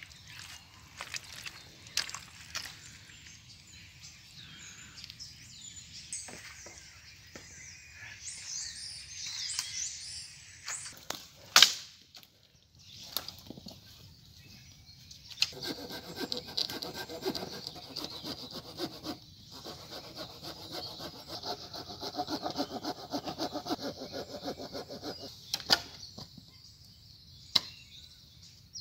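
A campfire crackles with small snaps, and about twelve seconds in there is one sharp loud crack. Then comes about ten seconds of steady hand sawing through a wooden branch, with a short pause partway through.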